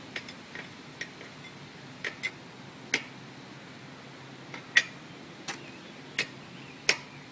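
About ten sharp, irregularly spaced metallic clicks from a wrench working the axle nuts as a BMX wheel is tightened back onto the fork, one side and then the other.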